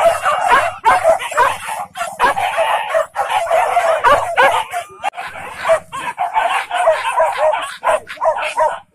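A pack of hunting dogs barking and yelping all at once, many voices overlapping without a break, worked up over a piglet they are being trained on.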